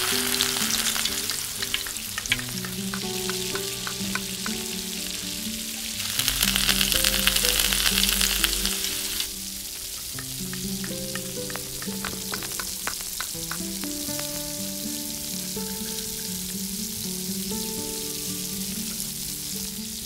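Food frying in oil in a miniature pan, sizzling. The sizzle surges for a few seconds near the middle, then settles to a softer hiss with scattered sharp ticks.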